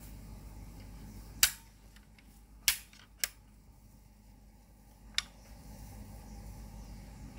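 Four short, sharp clicks spread over about four seconds, the first two the loudest, over a faint steady hum.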